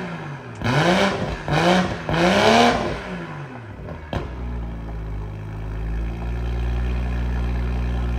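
A 2022 BMW M340i's B58 turbocharged inline-six, freshly fitted with a stainless steel valved cat-back exhaust, revved in three quick throttle blips. A sharp click comes about four seconds in, and the engine then idles steadily with a strong low drone.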